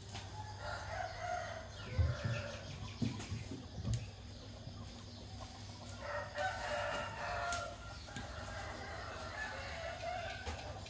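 Roosters crowing: a long crow about half a second in, another around six seconds in, and a fainter one after it. A few dull low thumps between two and four seconds in.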